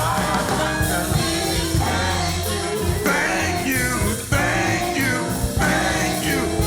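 Live gospel worship song: a church band playing steadily under a singer's drawn-out, wavering vocal lines.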